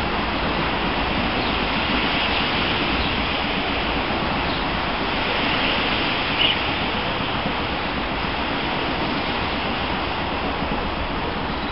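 Heavy rain falling in a steady, even hiss, with one sharper tap about six and a half seconds in.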